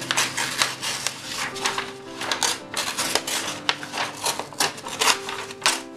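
A sheet of paper being torn by hand into a mountain-ridge stencil: a run of short, crackly rips and rustles, with background music underneath.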